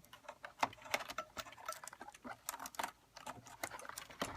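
Irregular small clicks and taps of fingers working a thin sensor-cable connector loose from an iMac logic board.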